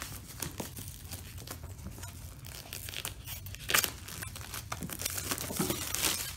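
Clear plastic shrink-wrap being torn and peeled off a product box, crinkling and crackling, with a sharper rip just before four seconds in.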